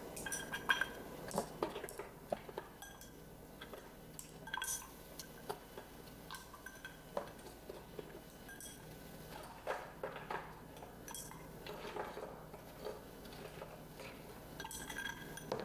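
Ice cubes being put into tall glasses one by one, clinking and knocking against the glass, with scattered sharp clinks throughout.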